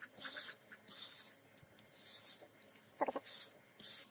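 Repeated scratchy strokes of an abrasive being rubbed by hand along a rusty steel katana blade to take off the rust, about one stroke a second. A short pitched squeak comes about three seconds in.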